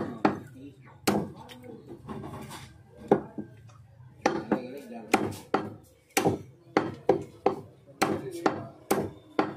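Chicken being chopped into bone-in pieces on a chopping block: a few sharp chops at first, then a steady run of about two chops a second from about four seconds in.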